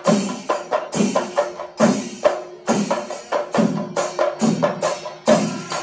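Chenda melam: Kerala temple percussion, chenda drums beaten with sticks together with ilathalam cymbals, playing a fast rhythm with strong accents about once a second and quick strokes in between.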